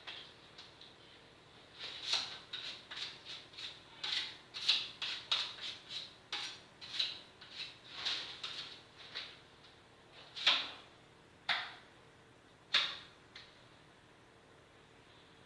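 An irregular run of short, sharp clicks, several a second, followed by three louder single cracks a second or so apart near the end.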